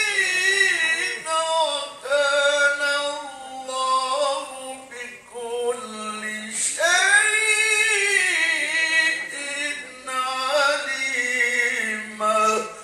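A man's melodic Quran recitation in the tilawah style, sung into a handheld microphone: long, ornamented phrases in a high register, the held notes wavering and sliding up and down, with short pauses for breath between phrases.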